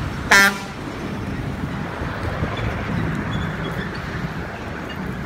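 Steady outdoor background noise, broken about a third of a second in by one short, loud, pitched call.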